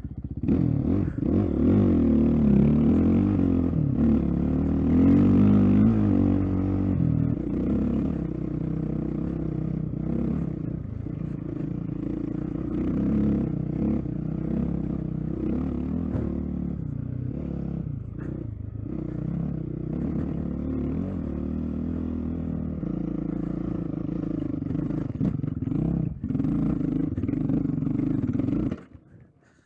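Dirt bike engine running under load off road, its pitch rising and falling with the throttle, with some clatter from the bike. About a second before the end the engine sound drops away abruptly.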